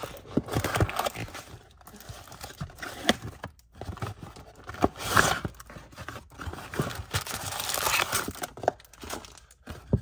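Plastic shrink wrap being torn and crinkled off a 2023 Bowman Mega Box of trading cards, then the cardboard box flaps pulled open and the packs handled, with irregular crackles, tears and taps. The louder rustling comes about halfway through and again near the end.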